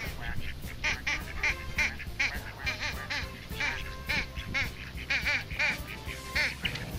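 Duck quacking: a run of short quacks in quick succession, about three a second.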